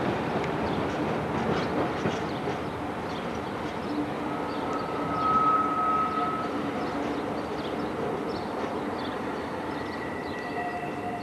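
A British Rail Class 47 diesel locomotive, Sulzer V12 engine, running light away over pointwork, its engine and wheel noise fading as it recedes. Wheels click over the rail joints and crossings, and a high steady squeal lasts about two seconds near the middle.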